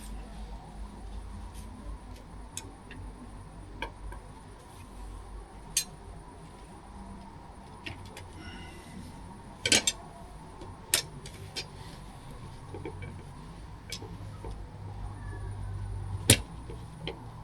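A folding camp table and chair being set up: scattered sharp clicks and knocks of their parts being fitted together, the loudest about ten, eleven and sixteen seconds in, over a low steady rumble.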